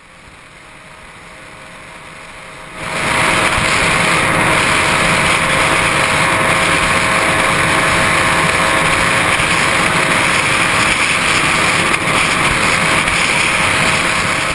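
Onboard sound of a Yamaha YZF-R1 sport bike held at about 300 km/h: a loud, steady mix of heavy wind rush and the inline-four engine running at high revs. It comes in suddenly about three seconds in, after a quieter, swelling hiss.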